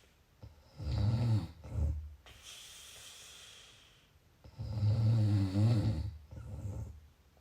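Snoring: two low, buzzing snores about three and a half seconds apart, with a softer breathy out-breath between them.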